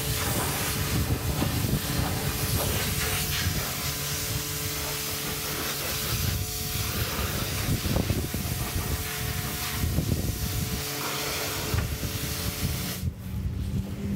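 Pressure washer jet spraying water onto a car's bodywork: a loud, steady hiss with a steady hum underneath. The spray cuts off suddenly about a second before the end.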